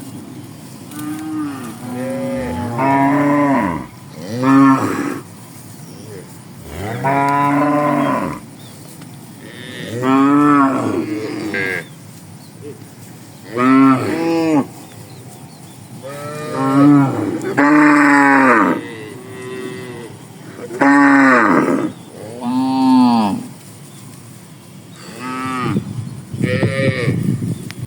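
Cattle mooing repeatedly, about a dozen long calls a few seconds apart, each rising and falling in pitch, with the animals calling back and forth.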